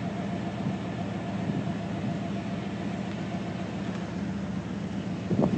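A vehicle engine idling with a steady low hum, and a short faint sound near the end.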